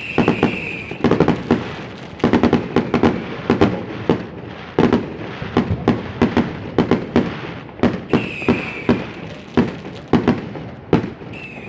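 Consumer fireworks going off: a dense, irregular run of sharp firecracker and rocket bangs one after another. A whistling screech sounds right at the start and again about eight seconds in.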